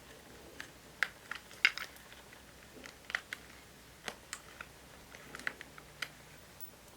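Light, irregular clicks and taps of plastic breast pump parts being handled and fitted together.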